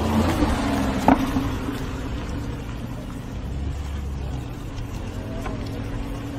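Sports car engine running at fairly steady revs, with a sharp knock about a second in.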